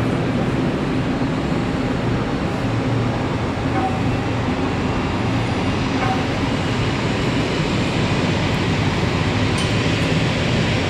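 Jet airliner engines, a steady, even rumble with no rise or fall in level.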